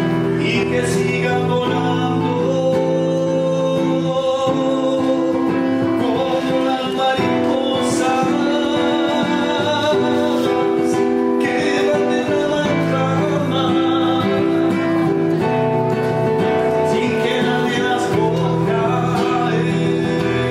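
A man singing a Latin ballad, accompanying himself by strumming a nylon-string classical guitar.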